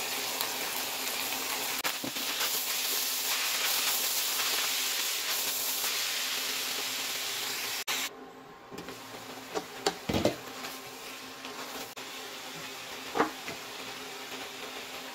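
Ground beef and mixed vegetables sizzling in a stainless steel pot, a steady strong hiss. About eight seconds in it drops suddenly to a quieter sizzle, with a few light knocks of a wooden spatula against the pot.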